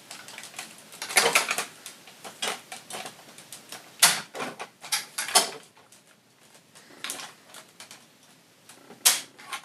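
Hard plastic toy-car parts being handled and clicked together: scattered irregular clicks and knocks, the sharpest about four seconds in and again about nine seconds in.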